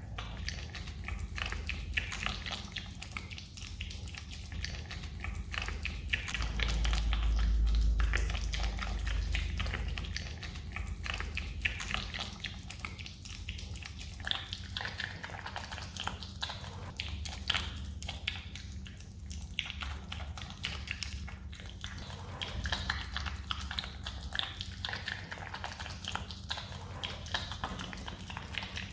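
Himalayan marmot chewing and licking a piece of jelly: rapid wet smacking and clicking of its mouth and teeth. A low rumble runs under it for a few seconds about a quarter of the way in.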